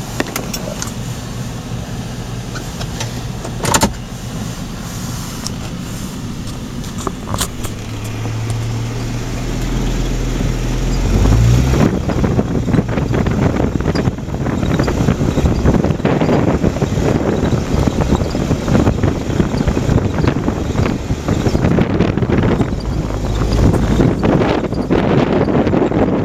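Car moving off and being driven: a steady low engine hum swells and rises about ten seconds in, then gives way to road noise with many small clicks and knocks.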